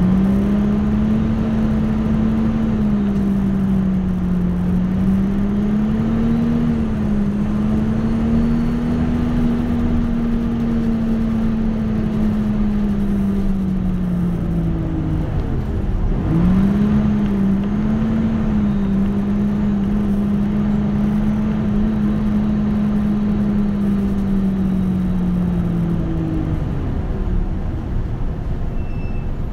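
Nissan Diesel UA city bus on the move, its diesel engine and driveline giving a steady drone. The note sags as the bus slows about halfway through, picks straight back up as it pulls away again, then falls away near the end as it slows once more.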